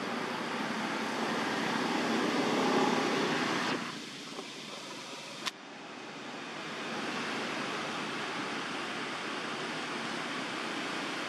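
Steady rushing outdoor ambient noise. It drops away abruptly about four seconds in, a single sharp click comes a little later, and then the noise builds back up and holds steady.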